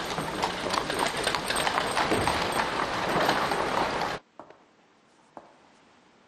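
Horse hooves clip-clopping amid a dense clatter, which cuts off abruptly about four seconds in; after that there is a quiet room with faint ticks about once a second.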